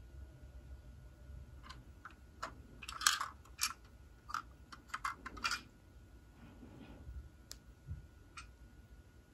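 Small plastic clicks and taps from a Lego garbage truck being handled and turned over in the hand: a quick run of them a couple of seconds in, then two single clicks near the end.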